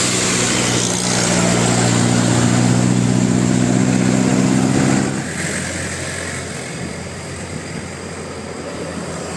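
Bus engine running at a steady pitch, then dropping away abruptly about five seconds in, leaving a quieter, lower engine hum.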